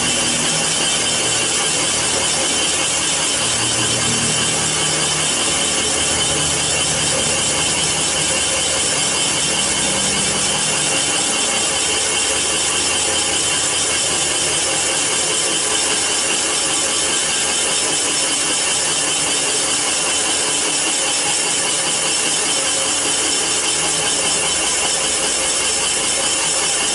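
Comec CNC cylinder boring machine cutting a cylinder bore in an iron engine block: a steady, even rasping noise of the boring tool cutting metal.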